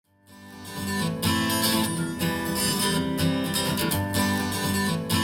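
Pop song with strummed acoustic guitar, starting from silence and building to full level over about the first second, played back through desktop speakers and recorded by microphone.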